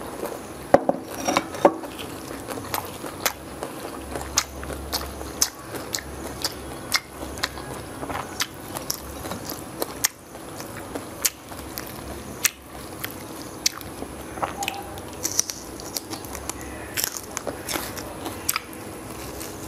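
Close-miked biting and chewing of bánh xèo (small crispy rice-flour pancakes) wrapped in leafy greens: irregular sharp crunches and wet mouth clicks.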